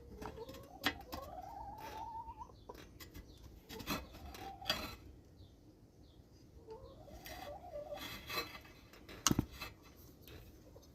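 Chickens clucking, with three drawn-out rising, wavering calls. Scattered sharp clicks and knocks from hand work on the mower engine; the loudest is a knock near the end.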